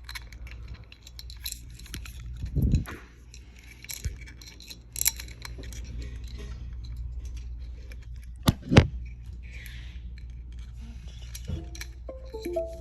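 Wire cable being poked and worked by hand into a small hole in a pulley mechanism: scattered light metallic clicks, ticks and scrapes, with a sharper double knock a little past halfway, over a steady low hum.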